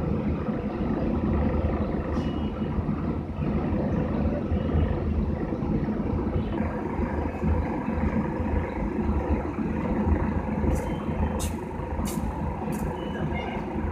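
A vehicle engine running steadily, a low rumble heard from inside the vehicle's cabin. Near the end come four sharp, evenly spaced clicks.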